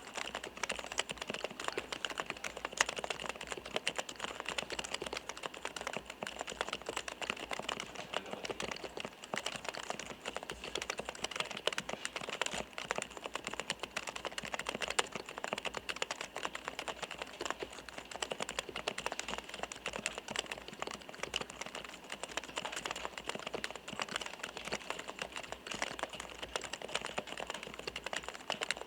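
Continuous rapid typing on a Topre REALFORCE R3 keyboard's electrostatic capacitive switches. Each key makes the distinctive soft 'koto-koto' clack of a Topre switch bottoming out.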